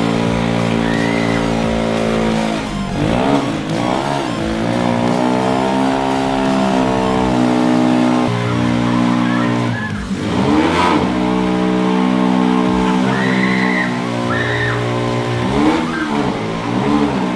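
Honda CG 125 Today's single-cylinder four-stroke engine running at a held throttle, dropping and picking back up in revs a few times.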